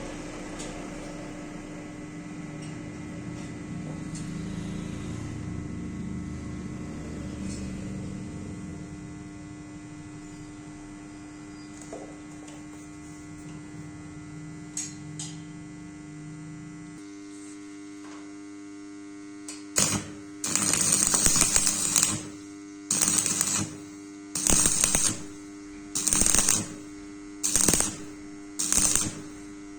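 Electric arc welding on thin galvanized square pipe: a steady electrical hum, then from about two-thirds of the way in a run of short, loud crackling arc bursts, each half a second to two seconds long, about one every second and a half, as the pipe is welded in short stitches.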